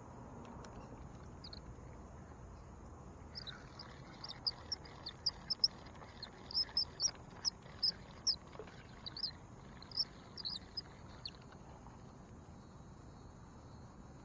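Outdoor ambience at a pond: a wild animal chirps in a quick, irregular run of short, high notes. The run starts a few seconds in and dies away about three quarters of the way through, over a steady high-pitched drone of insects.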